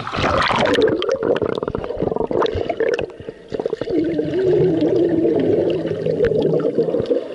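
Muffled underwater sound from a camera submerged in a swimming pool: water churning and bubbling with many rapid crackles, over a wavering drone.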